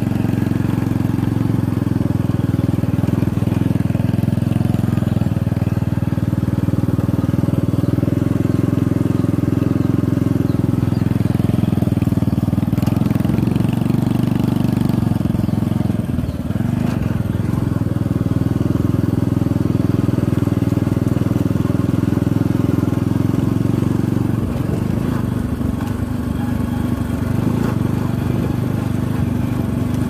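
Motorcycle engine running steadily while riding, dipping briefly about halfway through.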